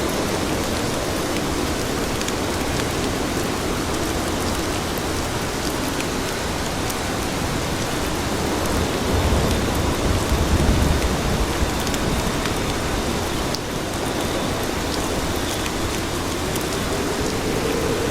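Steady rain falling on city pavement, an even hiss of drops. A low rumble swells briefly about halfway through, and a faint hum rises in pitch near the end.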